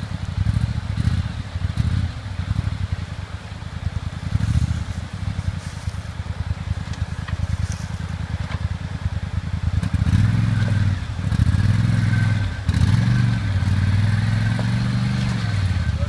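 Four-wheel ATV engine running under throttle, revving up and down repeatedly as the quad is worked out of shallow river water onto a rocky bank. The revving gets loudest in the last six seconds, over the steady rush of river rapids.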